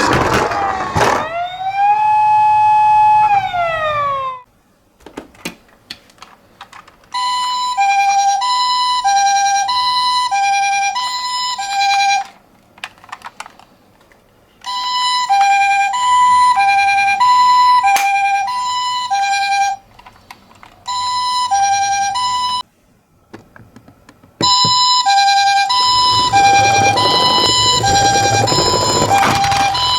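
Electronic siren of a toy ambulance minicar. First a gliding wail that levels off, falls and cuts off a few seconds in. Then, after short gaps with a few clicks, several bursts of the two-tone hi-lo ambulance siren, the two notes alternating about twice a second.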